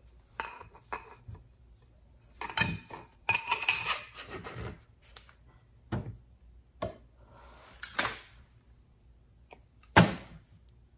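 Metal engine parts handled on a workbench: a piston and connecting rod clinking and rattling as they are worked into a tapered ring compressor sleeve, with a few separate sharp knocks, the loudest about ten seconds in.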